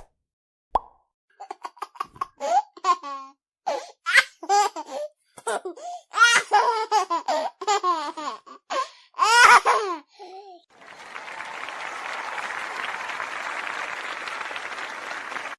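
A baby laughing in many short, high-pitched bursts, followed about two-thirds of the way through by a steady hiss.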